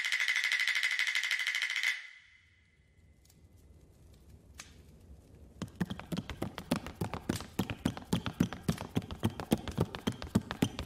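A high, fluttering electric-bell-like ring that cuts off about two seconds in and rings away. After a near-silent pause, quick footsteps on a hollow wooden floor start up and grow louder, at about five a second, like someone running toward the listener.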